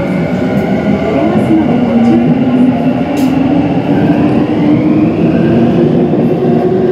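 Electric subway train pulling out of a station, heard from inside the car: the traction motors' whine climbs steadily in pitch as it gathers speed, over the running rumble of wheels on rail.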